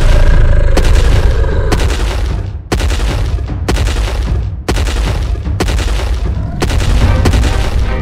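Heavy, deep booms about once a second, eight in a row, over a continuous low rumble.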